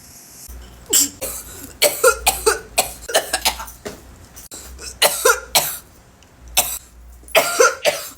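A person coughing hard in repeated fits, several coughs to a bit, after inhaling cannabis smoke or vapour.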